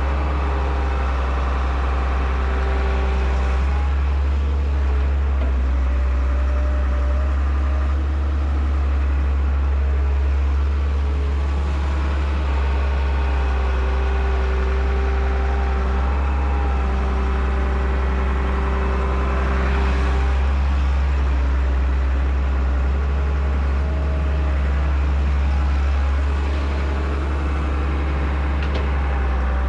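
Excavator's diesel engine running steadily with a deep, even drone.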